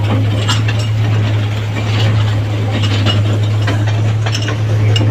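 Toy train's engine running with a steady low drone, with rattling and clicking from the carriages.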